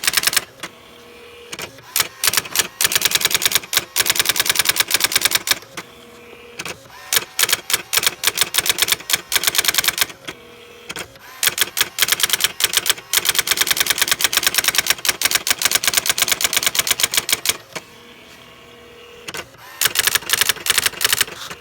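Brother GX-6750 daisy-wheel electronic typewriter printing its built-in demo text by itself: rapid runs of even, machine-paced key strikes line after line, each run broken by a short quieter pause between lines.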